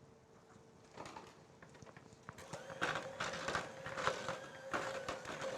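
Electric mixer beating thick cookie dough. It starts about two seconds in with a steady motor hum and fast, irregular clattering as the beaters knock against the bowl.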